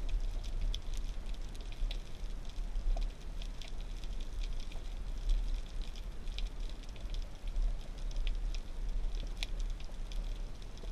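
Underwater ambience picked up by a camera in a waterproof housing: a steady low rumble with scattered crackling clicks.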